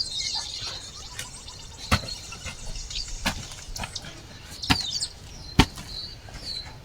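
A jembe (hand hoe) striking and chopping into garden soil, a series of irregular sharp knocks at roughly one a second.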